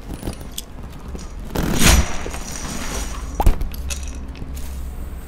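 Plastic LEGO bricks clattering and tumbling across a tabletop, with a loud rush of bricks about two seconds in and a sharp snap about a second and a half later.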